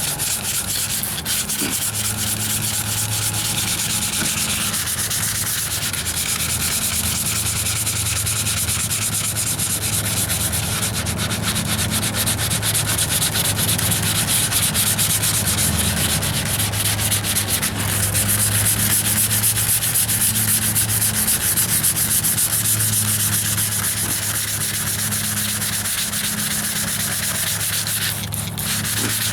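Hand wet sanding of filler primer on a steel wheel arch with 220-grit sandpaper and soapy water: a steady, continuous scratchy rubbing of light strokes, pausing briefly near the end.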